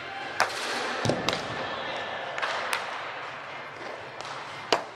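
Baseball bats hitting balls in batting-practice cages: about five sharp cracks, the loudest about half a second in and again near the end. A low murmur of voices runs underneath.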